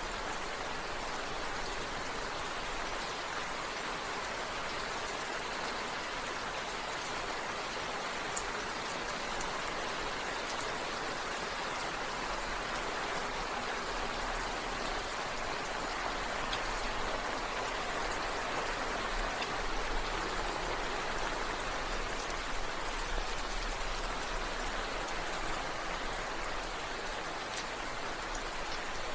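Steady rain falling, a dense even patter of drops on a surface, growing slightly louder in the second half.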